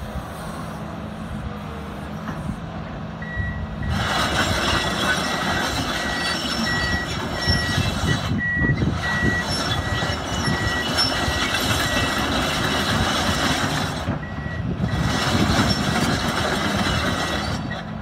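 Komatsu PC210LC-10 excavator's SAA6D107E turbo diesel running low, then rising to a loud working run under hydraulic load about four seconds in, with brief lulls. A machine warning alarm beeps in a regular series over much of it.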